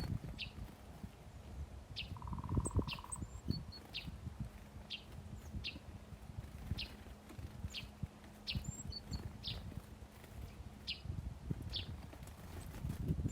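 Small birds at a feeder calling with short, high chirps repeated about once a second, with a few thinner, higher chips among them. A short buzzing note sounds about two seconds in. A low rumble runs underneath.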